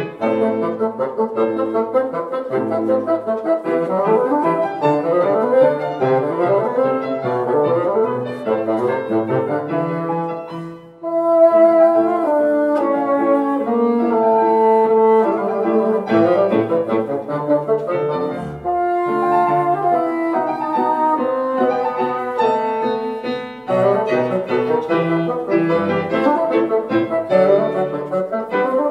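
Bassoon and grand piano playing classical music together, the bassoon's held notes over piano chords, with a brief break in the playing about eleven seconds in.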